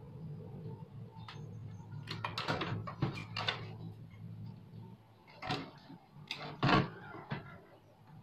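Clicks, knocks and rustles of hands handling a CRT television's circuit board and wiring, in a cluster about two seconds in and again later, the loudest knock near the end. A steady low hum sits underneath and fades out about halfway through.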